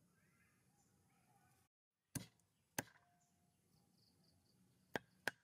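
Meat cleaver chopping raw chicken feet on a wooden chopping block: four sharp chops, two a little over halfway through and two quick ones near the end.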